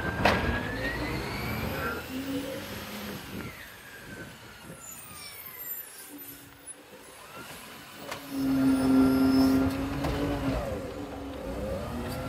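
Isuzu side-loader garbage truck: a sharp clank near the start, the engine running as the truck pulls up to a wheelie bin, then from about eight seconds a loud steady hydraulic hum as the lifting arm grabs and raises the bin.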